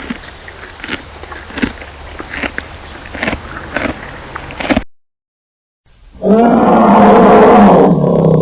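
Several seconds of light clicking and rustling. After a short break, a loud, long animal call with a steady pitch lasts about three seconds.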